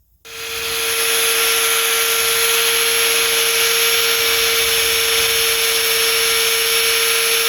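Power grinder grinding the end of a hardened chain pin flush on a baler's apron chain link. It starts about a quarter second in, then runs steadily: a loud grinding hiss over a steady motor whine.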